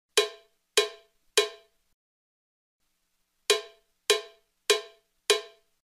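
Metronome clicks counting out silent bars: three clicks, a pause, then four clicks, evenly spaced about 0.6 s apart. They mark the three beats of a dotted half note rest and the four beats of a whole note rest.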